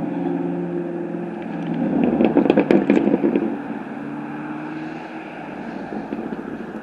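Motor vehicle engine running steadily, with a louder rattling stretch about two seconds in.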